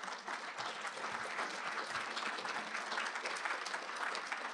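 Audience applauding at the end of a talk: a dense, steady patter of many hands clapping.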